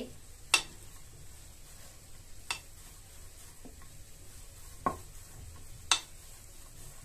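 Hands rolling soft mawa dough on a ceramic plate: a handful of sharp, spaced-out clicks as the hand knocks against the plate, over a faint steady background.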